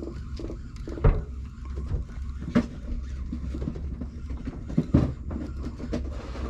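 Steady low engine rumble, with a few sharp knocks about a second, two and a half seconds and five seconds in.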